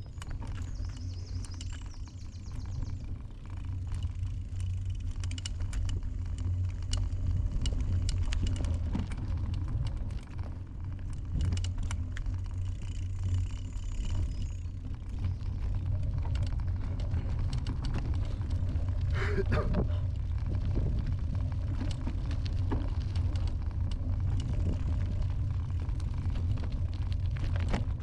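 Bicycle riding along a rough path: a steady low rumble from the ride, with frequent small rattles and clicks.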